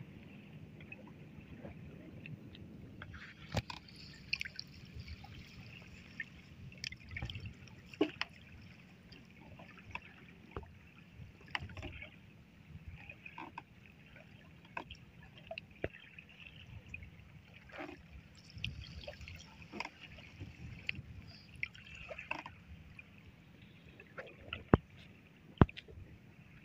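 Water lapping against a small wooden boat, with scattered light clicks, taps and splashes from a wet fishing net being hauled in over the side and picked by hand.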